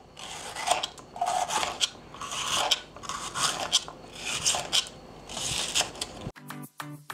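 Small kitchen knife cutting through a green bell pepper on a plastic chopping board: about six cutting strokes, roughly one a second, as it slices around the seeds. Music cuts in abruptly near the end.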